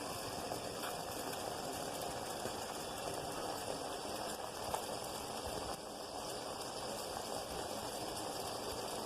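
Pot of kadha, water with herbs and spices, boiling steadily, with an occasional small pop.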